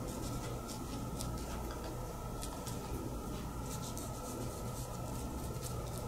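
Chinese ink brush dabbing and stroking on paper as it lays ink into tree foliage, making soft, irregular little taps and brushing rustles over a steady background hum.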